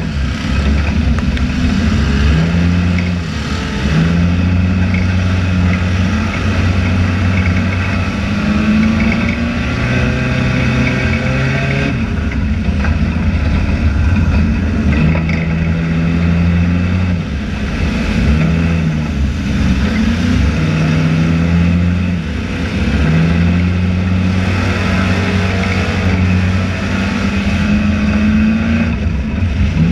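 Race car engine heard from inside the cockpit, loud, its pitch falling and climbing again every few seconds as the driver lifts off for each turn of the oval and gets back on the throttle, over a steady rattle and road noise.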